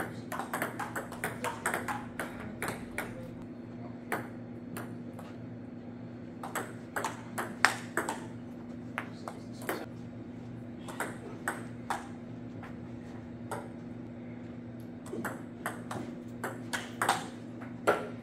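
Table tennis ball clicking off paddles and the table in several quick rallies, with short pauses between points. A steady low hum runs underneath.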